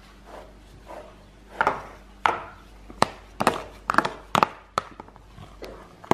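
A utensil stirring soggy torn toilet paper into dish soap in a clear plastic food container, knocking and scraping against the container's sides and bottom in irregular sharp clicks.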